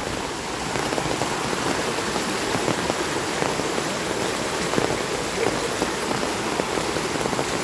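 Muddy storm runoff rushing down a washed-out dirt street as a fast torrent: a steady noise of rushing, splashing water.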